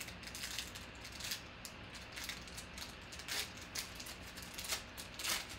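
Foil wrapper of a football trading-card pack crinkling and rustling as it is torn open and handled by hand, with a few sharper crinkles here and there.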